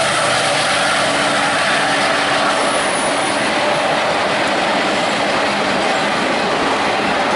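Freight train of autorack cars rolling past close by: a steady, loud rumble and rattle of steel wheels on the rails.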